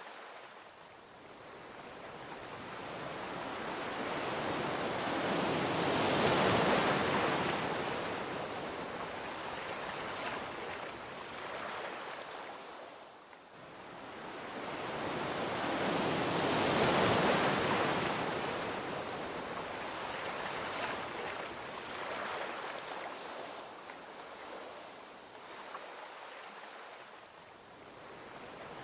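Gentle ocean waves breaking and washing onto a beach: a hiss of surf that swells and fades, with two slow swells peaking about six and seventeen seconds in.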